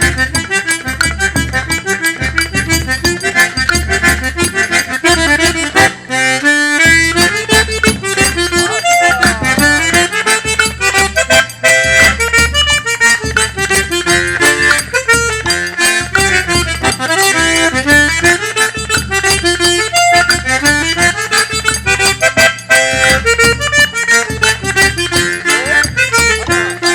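Accordion music: a sanfona plays a quick melody over a steady low bass beat, with a short break in the bass about six seconds in.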